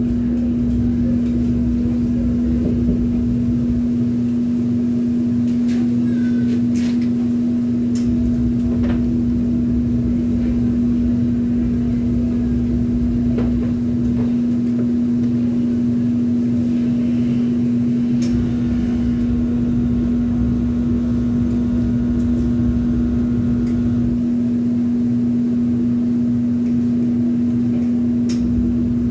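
Steady loud drone of running pizzeria kitchen machinery, the conveyor oven and fans, with one strong unchanging hum tone and a few faint clicks.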